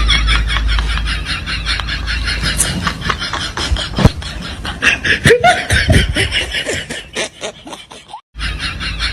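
Rapid, repeated snickering laughter, in quick short bursts, dropping out briefly near the end.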